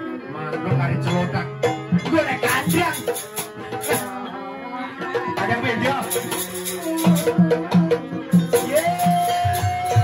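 Live Banyuwangi jaranan music: a percussion-led ensemble with drums and rattling percussion playing a busy rhythm, over pitched melody lines. A single high note is held steady from about nine seconds in.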